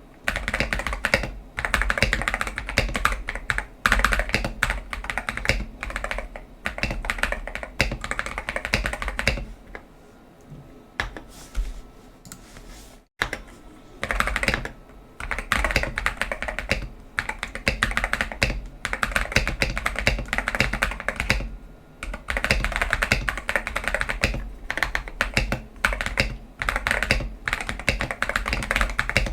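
Typing on an Akko 5075S mechanical keyboard with Akko Cream Yellow Pro linear switches and PBT XDA keycaps, tape-modded and foam-dampened. Keystrokes come in fast runs, thinning to a few scattered strokes for about four seconds midway.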